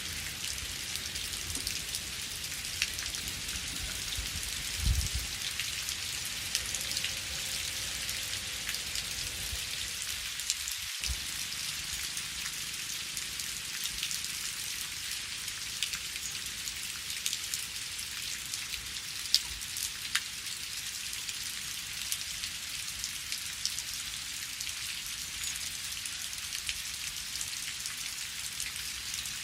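Steady rain: an even hiss dotted with the ticks of individual drops striking. About five seconds in there is a single low thump.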